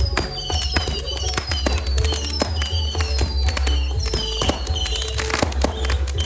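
Fireworks crackling and popping in rapid, irregular cracks, over loud music with a heavy bass.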